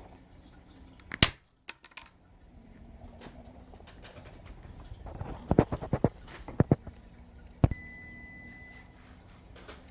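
Sharp clicks and snaps of hard plastic as the plastic battery tray of an RC truck chassis is cut and worked on: a single loud click about a second in, then a quick cluster of clicks about five to seven seconds in. A faint steady high tone sounds for about a second near the end.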